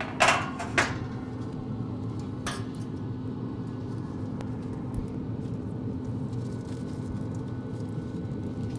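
Steady low hum of a running pellet smoker, with a few short clicks and knocks in the first few seconds.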